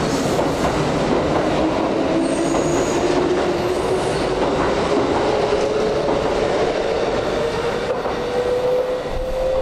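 Kintetsu electric train pulling away, its traction motor whine rising slowly and steadily in pitch as it accelerates, over the rumble of wheels on rail.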